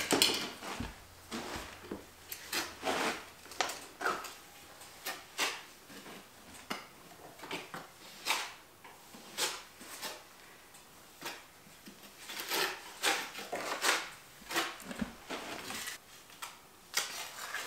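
Trowel scraping and knocking through stiff mortar in a string of short, irregular strokes, the mortar now mixed to a texture that holds without dripping.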